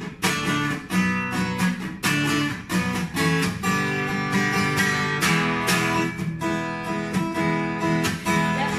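Acoustic guitar strummed in a steady rhythm, chords sounding about twice a second.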